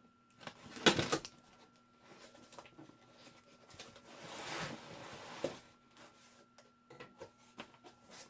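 Packaging being handled while a boxed belt sander is unpacked: a sharp knock about a second in, a rustling scrape of cardboard or plastic around four to five seconds, and a few light clicks near the end.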